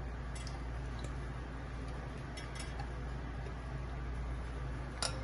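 Faint ticks and soft scraping of a spatula working yogurt out of a plastic tub into an aluminium pot, over a steady low hum, with a sharper click near the end.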